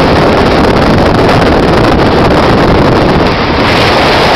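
Loud, steady wind buffeting the microphone on a motorboat under way, mixed with the rush of the boat running over choppy water.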